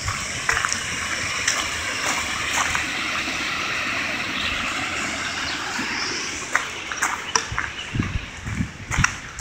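Mountain river rushing over rocks in small cascades, a steady whitewater hiss. About two-thirds of the way through it eases and footsteps crunch on a gravel track, with a few low thumps near the end.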